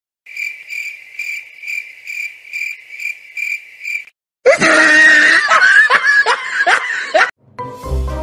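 An even, high chirping, about three pulses a second, for roughly four seconds. Then a loud chorus of shrill, overlapping kitten mews with falling pitch for about three seconds.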